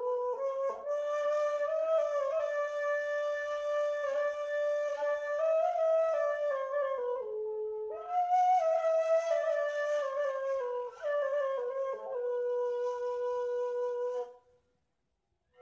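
Ney, the Turkish end-blown reed flute, playing a slow solo melody of long held notes with an airy breath hiss; the line steps down and breaks briefly about halfway through, then the phrase ends about a second before the end.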